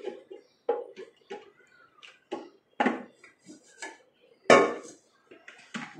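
Plastic clicks and knocks of a mixer's clear jar and lid being handled and fitted into place: a string of separate taps, the loudest about four and a half seconds in.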